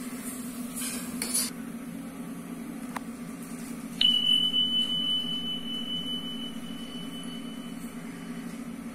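Steel ladle scraping and clinking against the steel bowl of tomato jam, then about four seconds in a single clear high ring that fades slowly over several seconds, over a steady low hum.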